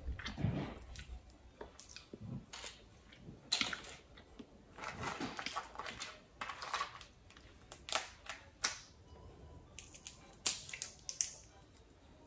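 Boiled crawfish shells cracking and crackling as they are peeled by hand, in irregular sharp clicks, with a longer stretch of shells rattling against each other about five seconds in as the pile is sorted through.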